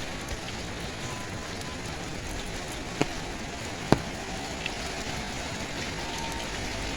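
Heavy rain falling steadily, with two sharp taps a little under a second apart in the middle.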